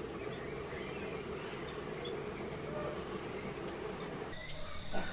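Forest insects: a low buzzing hum under a steady high-pitched insect whine. About four seconds in, the ambience changes abruptly to a different steady high tone.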